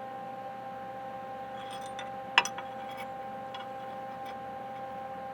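A steady hum of a few pitches, with a few light metallic clicks and one sharp click about two and a half seconds in.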